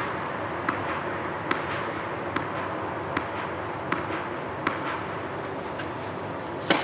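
Tennis ball bounced on the court about every second before a serve, each bounce a short sharp click over a steady hum, followed near the end by the louder crack of the racket striking the ball on the serve.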